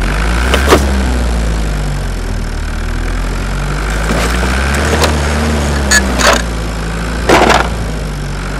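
A vehicle motor running with a steady low drone, with several sharp clicks or knocks over it.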